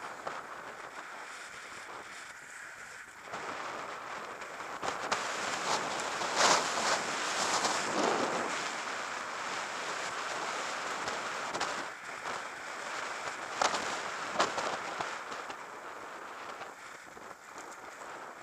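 Wind rushing over the microphone of a camera on a moving bicycle, a steady hiss that swells for several seconds in the middle, with a few sharp knocks.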